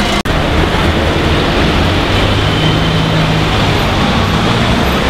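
Steady street traffic: car and minibus engines running with a low hum and road noise. The sound drops out sharply for an instant about a quarter second in.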